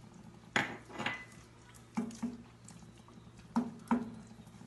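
Wooden spatula stirring thick beef stew in a stainless steel pot, knocking against the pot in three pairs of clacks about a second and a half apart.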